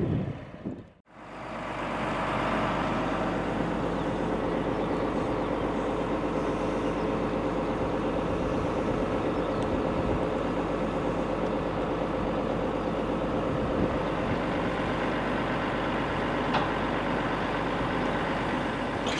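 Volvo crane truck's diesel engine idling steadily, a constant low hum. It cuts out briefly about a second in, then fades back up.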